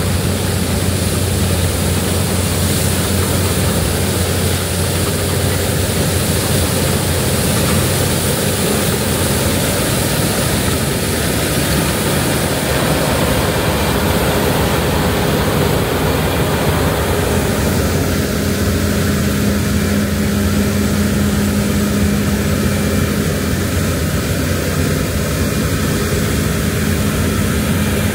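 Claas Lexion 8900 combine harvester running steadily while harvesting rapeseed: a dense, even machinery drone with a steady low engine hum.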